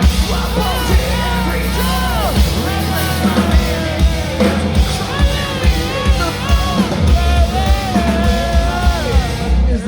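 Rock band playing loud with pounding drums and a sung vocal line over the music.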